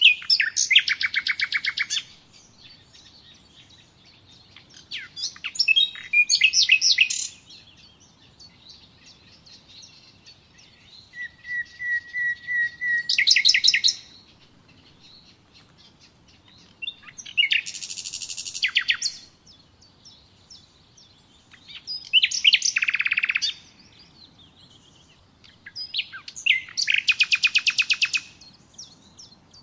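A songbird singing in repeated phrases of fast, high trills, six phrases each a second or two long, separated by pauses of a few seconds; one phrase opens with a steady whistled note before the trill.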